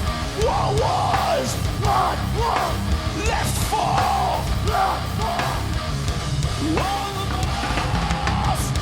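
Heavy metal played by a live band through the PA: drum kit and guitars under a melodic line that bends up and down in pitch, ending in one long held note near the end.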